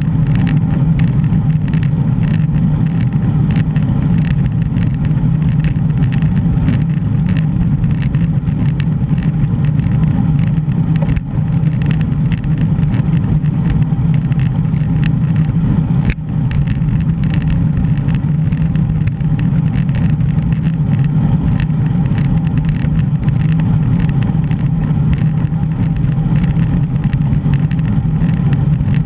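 Steady low rumble of wind and road noise on a GoPro carried on a moving bicycle, with many small ticks throughout.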